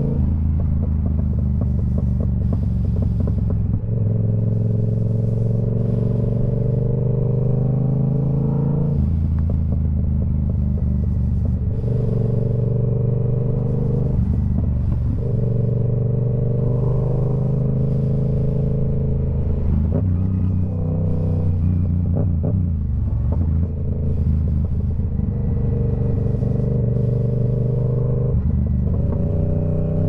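Yamaha R7's 689 cc parallel-twin engine through a TOCE full-system exhaust, running under way with a steady drone whose pitch steps up or down every few seconds as the throttle changes, and rising near the end.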